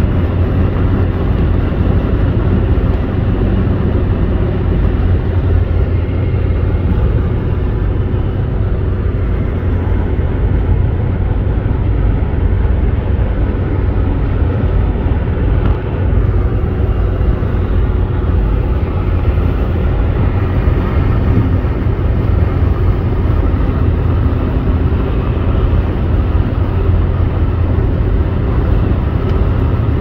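Steady road noise inside a car cruising on a highway: a deep, even drone of tyres and engine.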